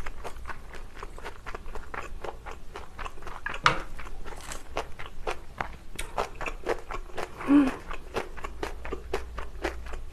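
Close-miked eating of kimchi fried rice and kimchi: a steady run of quick wet chewing clicks and crunches. There is one sharp click a little under four seconds in, and a short hummed "mm" at about seven and a half seconds.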